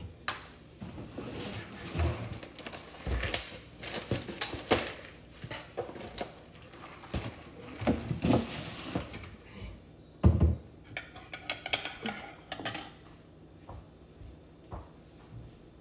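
Kitchen items being handled and put away in cabinets: a plastic jar and a cardboard box knocking against shelves and cabinet tops, with a run of clicks and clatter and one sharp knock about ten seconds in. It thins to scattered light taps near the end.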